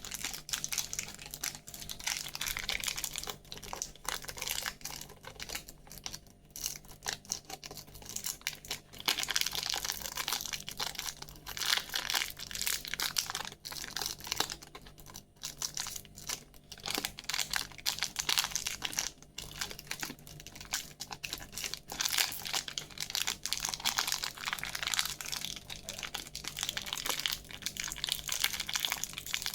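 Plastic candy wrappers crinkling as they are handled and unwrapped: a dense, continuous run of small crackles and clicks, easing off briefly a couple of times.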